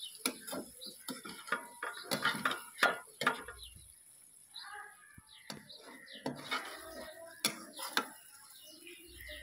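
A metal spoon scraping and clinking against a steel wok as a thick bitter gourd and meat curry is stirred, in irregular knocks.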